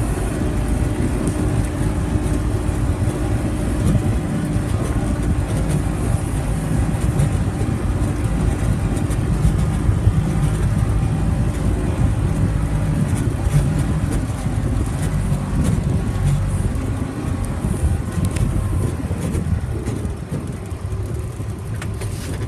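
A vehicle driving along with a steady low rumble, growing quieter over the last few seconds as it slows to a stop.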